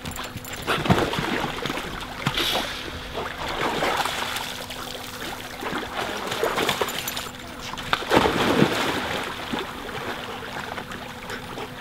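Dogs splashing in a swimming pool: irregular sloshing and splashing as a dog enters the water and swims after a tennis ball, the biggest splash about eight seconds in.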